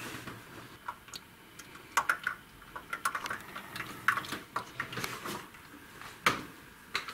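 Irregular light clicks and short metallic clatters of hand tools and parts being handled on an engine under assembly. There is a sharper knock about six seconds in.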